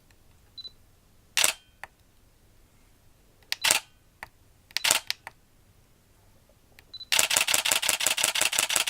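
Canon EOS 800D DSLR shutter firing: a few single shots, each a sharp click, then a rapid burst of continuous shooting, about eight to nine clicks a second, near the end. A faint short beep comes twice, before the first shot and just before the burst.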